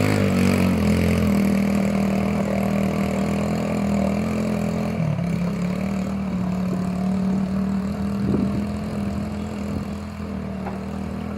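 ATV engine running at steady low revs, settling slightly lower in pitch about a second in and again midway, and getting a little quieter toward the end.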